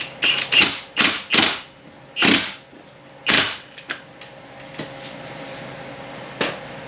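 Wrench tightening the front axle hub nut: a series of short ratcheting rasps, about six strokes in the first three and a half seconds, then a couple of light clicks.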